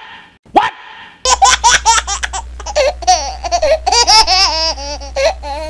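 Laughter in rapid, warbling bursts. It starts abruptly about a second in over a low hum and cuts off suddenly at the end, like a laugh sound effect added in editing.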